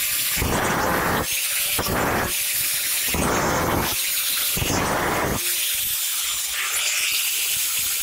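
Angle grinder with a cut-off disc cutting the stainless-steel washing machine drum: a constant high hiss from the disc on the metal, surging every second and a half or so as the disc bites, over the steady whine of the grinder's motor.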